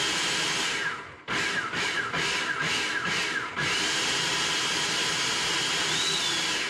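Countertop blender chopping a cilantro and oil sauce. It runs steadily, stops briefly, then gives a quick series of short pulses, each ending in a falling whine as the motor spins down, then runs steadily again with a high whine.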